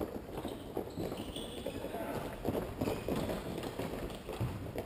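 Futsal play in a large sports hall: players' running footsteps and ball strikes on the court floor, a steady run of knocks and thuds that echo through the hall, with players' voices calling.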